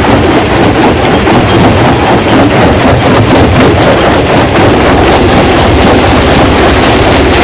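Stone crushing machine running loud and steady, with a dense, continuous clatter of rock being broken.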